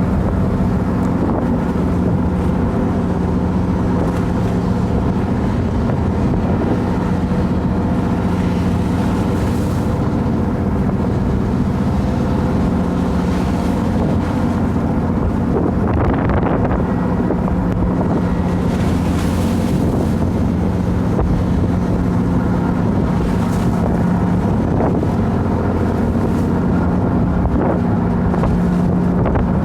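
A boat's engine running steadily, a constant low hum, with wind buffeting the microphone now and then.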